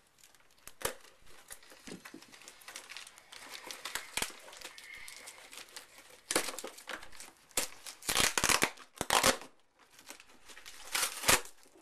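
Cardboard packaging and plastic wrap being torn and crinkled by hand while a scooter box is opened: light scratching and rustling at first, then several loud tearing rips in the second half.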